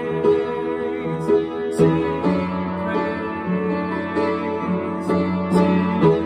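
Upright piano playing a worship song in held chords.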